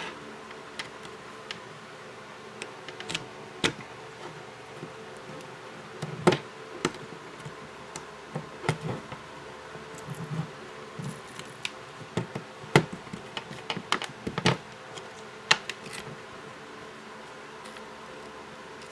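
Glued plastic back cover of a smartphone being slowly pried off: irregular sharp clicks and ticks as the adhesive underneath gives way, over a steady buzzing hum.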